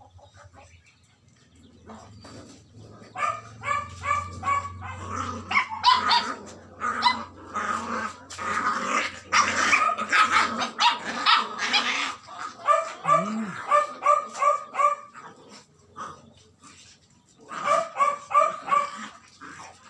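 Two puppies play-fighting, yapping in quick runs of short high barks, with a denser stretch of barking and growling in the middle.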